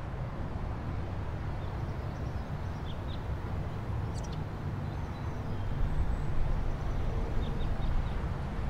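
Outdoor ambience: a steady low rumble of distant traffic, with a few faint high chirps about three, four and seven seconds in.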